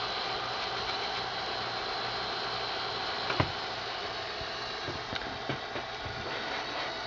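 Sanyo Betacord VCR4020 Betamax VCR's tape transport running with a steady whir, fitted with a new belt kit and working properly again. One sharp click comes about three and a half seconds in, and a few lighter clicks follow a couple of seconds later.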